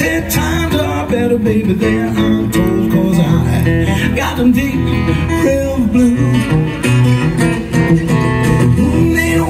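Live acoustic blues played over a PA: fingerpicked acoustic guitar over a steady bass line.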